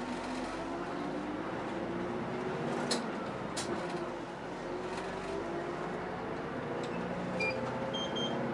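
Inside a moving route bus: the engine and drivetrain run steadily, with a whine that climbs in pitch in the second half as the bus gathers speed. A few sharp rattling clicks come through.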